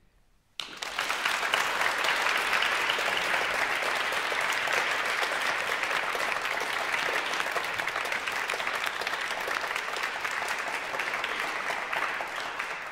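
Audience clapping, starting suddenly about half a second in, holding steady, and fading away near the end.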